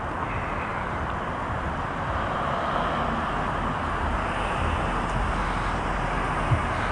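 Steady city traffic and road noise with a low rumble, heard from a bicycle rolling along the street.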